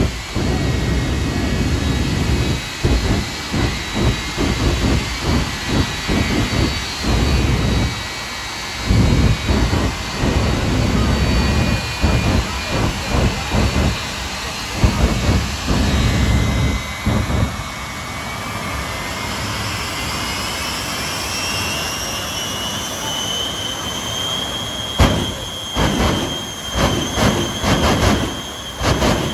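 Shockwave jet truck's afterburning jet engines: a high turbine whine that dips and then climbs in pitch, under a long series of loud, low afterburner blasts as the flames light again and again. Near the end come several sharp bangs.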